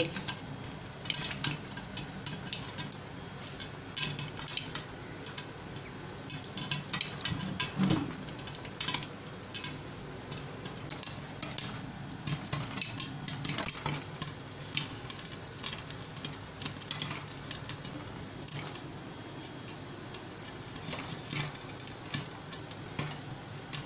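Popcorn kernels popping in hot oil in a pan under a glass lid: irregular sharp pops, coming thick in some stretches and sparse in others, over a steady hiss of frying oil.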